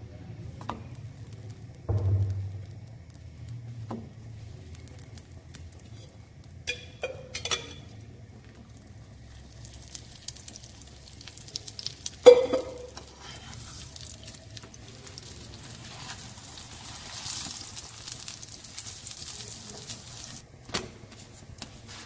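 Flatbreads warming on a lightly oiled flat tawa. Scattered taps and knocks come as they are laid down and handled with a spatula, the loudest knock about halfway through, and a soft sizzle runs through much of the second half.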